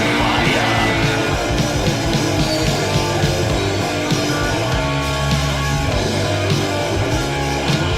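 Heavy metal band playing an instrumental passage: distorted electric guitar riffing over bass and drums, from a raw early-1980s demo recording played back from vinyl.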